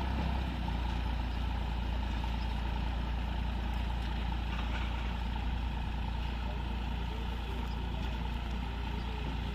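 Massey Ferguson 9500 Smart tractor's diesel engine working steadily under load, pulling a rotavator through dry soil.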